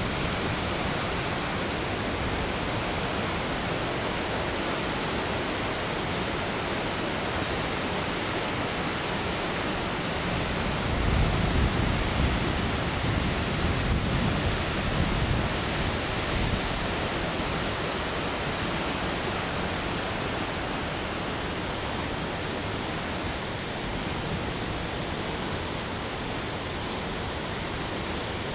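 Running Eagle Falls pouring into the river and the river rushing below it: a steady roar of falling and flowing water. About eleven seconds in, a deeper, louder rumble comes and goes for about five seconds.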